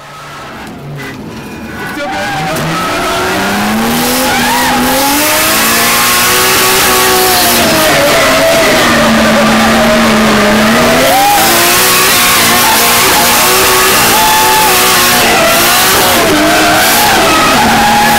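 Turbocharged RB25 straight-six in a Nissan S14, heard from inside the cabin while drifting. The engine revs up and down on and off the throttle over loud tyre squeal, getting louder over the first few seconds.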